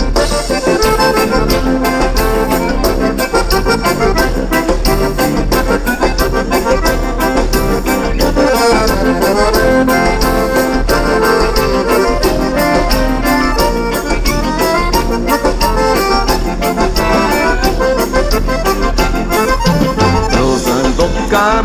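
Accordion-led instrumental passage of a gaúcho dance tune, with a band keeping a steady beat underneath.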